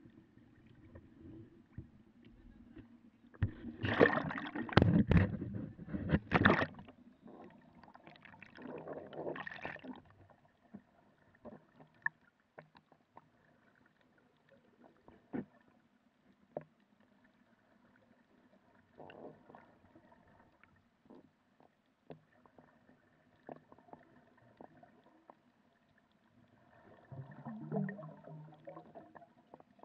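Water splashing and bubbling around a waterproof action camera as it goes under, loudest for a few seconds about four seconds in, then muffled underwater quiet broken by scattered clicks and another burst of bubbling near the end.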